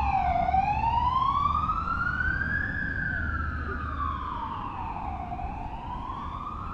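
Emergency vehicle siren wailing, its pitch sliding slowly up and down, one full rise and fall about every five seconds, gradually fading.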